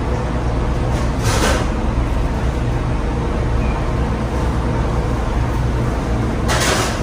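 Steady low machinery drone, like engine or ventilation noise, under hands kneading bread dough, with two brief rustles of flour and plastic about a second in and near the end.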